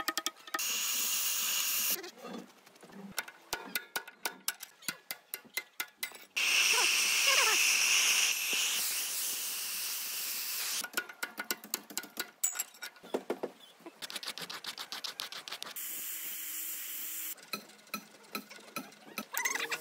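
Runs of rapid hammer blows on steel, from a hammer driving a chisel and pins on an excavator bucket. These alternate with stretches of steady hiss from a gas cutting torch flame inside the bucket's pin bore; the longest and loudest hiss comes in the middle.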